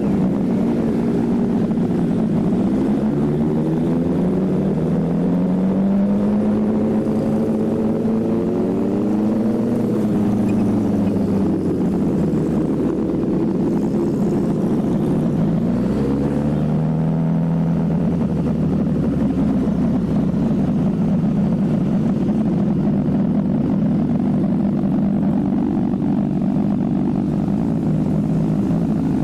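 Motorcycle engine running under way. Its pitch rises and falls a couple of times in the first half, then holds a steady drone.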